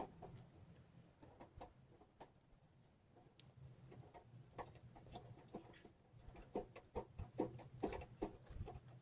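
Faint, scattered light clicks and taps of thin titanium stove parts being handled and fitted, coming closer together and a little louder near the end.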